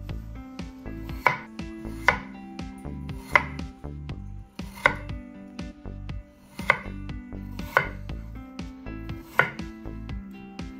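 Chef's knife slicing peeled raw potatoes into thin rounds on a wooden board. There are seven sharp knocks, one to two seconds apart, where the blade goes through and strikes the board, with softer cutting clicks between them.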